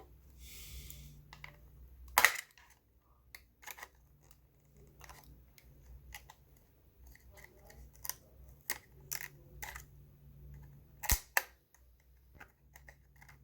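Scattered clicks and snaps from a Clover Flex card terminal being pried and handled during disassembly, the two sharpest about two seconds in and near eleven seconds.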